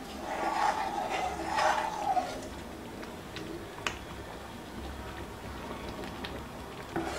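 A metal spoon stirring and scraping through rava pongal in an iron kadai, louder for the first two seconds, then a few sharp clicks of the spoon against the pan.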